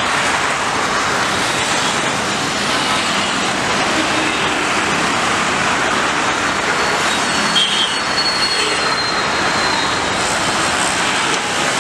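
Twin-engine wide-body jet airliner on final approach with gear down, a steady rushing jet noise with no distinct events. A thin high tone rides over it for a couple of seconds about two-thirds of the way through.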